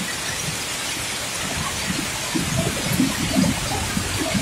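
Heavy rain pouring down in a steady hiss. From about halfway in, a low uneven rumble joins it as vehicles drive through the floodwater on the road.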